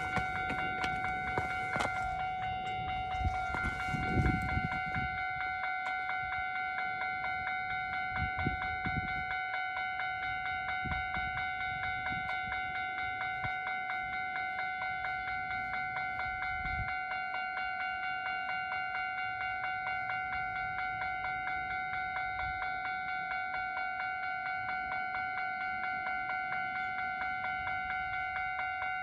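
Japanese railway level-crossing warning bell ringing with a fast, even, repeating two-tone clang. A few low rumbles come in under it in the first ten seconds.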